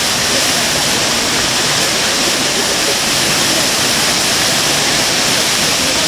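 Minoh Falls, a tall waterfall, plunging into its pool with a steady, loud rush of water.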